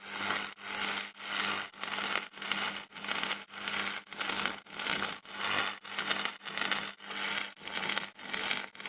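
Electricity sound effect given a wah-wah treatment: a noisy, hissing sound that swells and dips in even pulses about twice a second, over a low steady hum.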